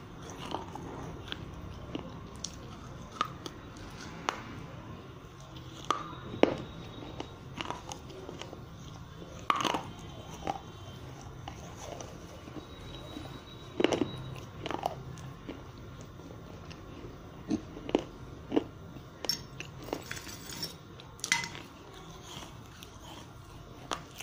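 Pieces of broken terracotta clay diya being bitten and chewed: irregular crunches and sharp clicks, a few of them louder, over a low steady background hum.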